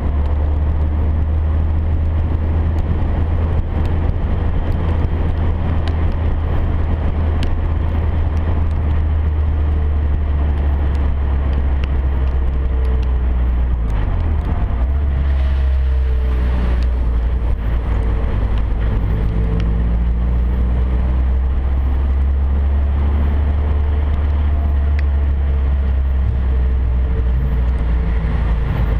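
Steady low wind buffeting and road noise on a camera mounted outside a car driven on a wet track. The engine note sits faintly beneath it and glides up and down several times from about the middle on.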